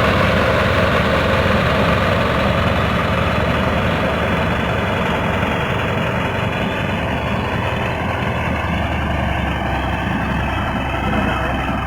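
Heavy diesel engine of construction machinery running steadily, easing off slightly over the first several seconds.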